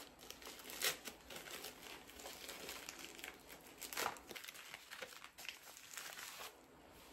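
Packaging crinkling and rustling as small mail packages are handled and opened, with a few louder crackles about a second in and again near the middle.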